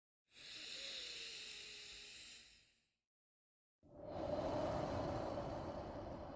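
Slow, deep human breathing: two long breaths of about two and a half to three seconds each, with a second of silence between them. The second breath is louder and lower than the first.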